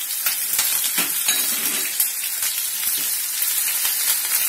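Chopped green chillies sizzling in hot oil in a pan, with scattered sharp pops and crackles. A wooden spatula stirs them near the end.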